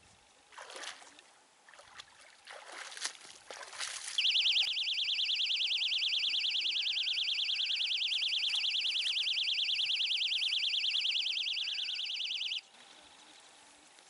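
Electronic carp bite alarm sounding a loud, rapid, continuous warbling tone for about eight seconds, then cutting off suddenly: a run, a fish taking line from the rod. Before it come a few short rustling swishes.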